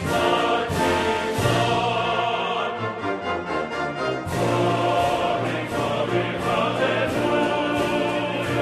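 Orchestral music with a choir singing in an operatic style; the texture thins out for a moment about three seconds in, then the full ensemble returns.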